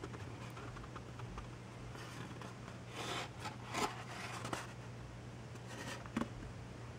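Faint handling noise of a tiny plastic quadcopter being worked out of a snug foil-covered cardboard packaging tray: light scrapes and rubs, several clustered around the middle, and a small click near the end.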